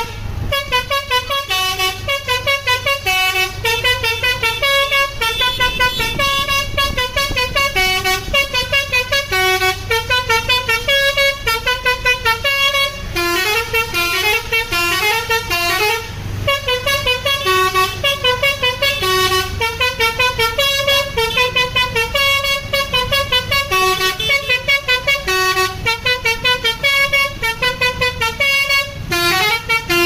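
Basuri telolet horn on a tour bus playing a fast, continuous melody of short stepped horn notes, pausing briefly about a third and about halfway through. The bus's engine hums low underneath.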